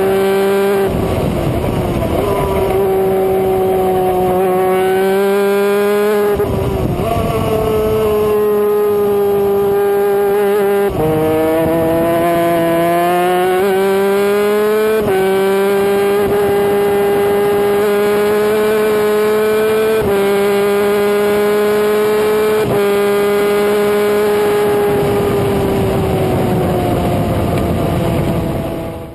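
250cc superkart engine at racing speed, heard close up from onboard with wind rush. It holds a loud, steady high note, and its pitch drops and climbs back several times at the gear changes and corners. The sound fades out near the end.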